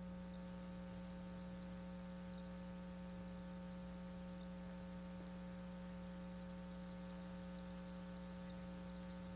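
A steady electrical hum with several overtones and a faint hiss, unchanging and with no voice on it: an open but dead audio line, the phone link to the correspondent carrying no sound.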